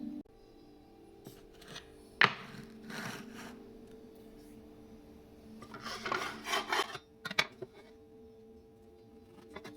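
Wooden parts of a walnut box being handled: a sharp knock about two seconds in, then rubbing and scraping of wood on wood, strongest a little past the middle, with a few light clicks after it.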